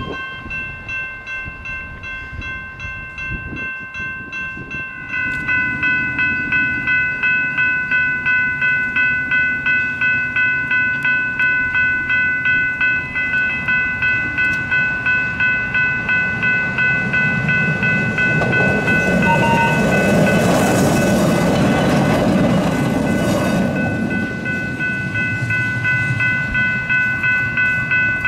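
Level-crossing warning bells ringing in a fast, even rhythm, louder from about five seconds in. A CTA 'L' rapid-transit train rumbles past over the crossing, loudest about twenty seconds in, while the bells keep ringing.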